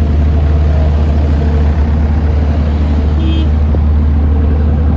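Steady, loud low rumble of street traffic, with a brief faint voice about three seconds in.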